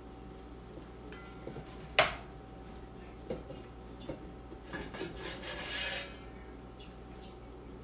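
Stainless steel kitchen bowls and utensils being handled: one sharp metallic clank with a short ring about two seconds in, then a second or so of clattering between five and six seconds.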